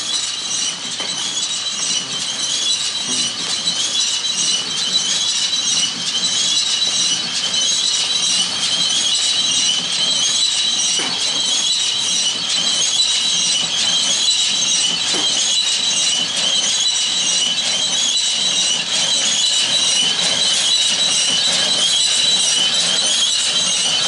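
John Deere 3020 tractor pulling a John Deere 336 square baler, the machinery running steadily under a continuous high-pitched squeal.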